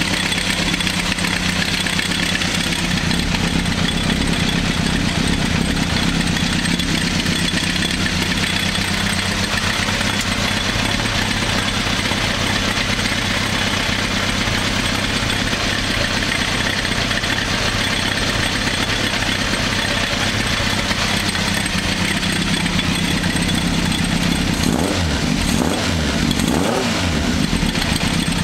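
Honda CB1000 Super Four's inline-four engine on FCR carburettors idling steadily while its exhaust is sampled for a gas-analyser check during carburettor tuning, with a few brief wavers in pitch near the end.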